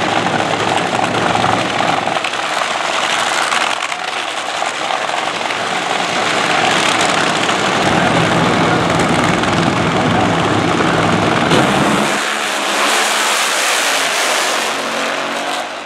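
Two nitro Funny Car engines running loud on the drag-strip starting line. About twelve seconds in the sound turns harsher and higher as the cars launch down the track.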